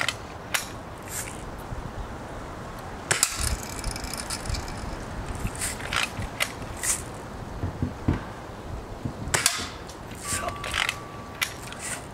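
BB gun being cocked and fired: a series of mechanical clicks and ratcheting, with sharp snaps about three seconds in and again about nine seconds in.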